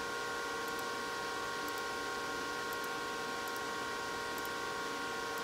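Cooling fans of AntMiner S9 Bitcoin ASIC miners running: a steady rush of air with a constant whine at several fixed pitches.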